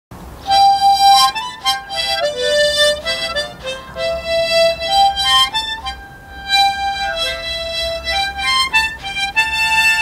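Instrumental music: a solo melody on a wind instrument, moving through held and quick notes.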